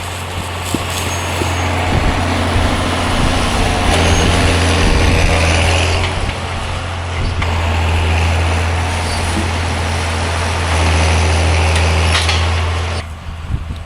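A vehicle engine running steadily with a deep hum and a broad rumble, swelling louder at times and dropping away about a second before the end.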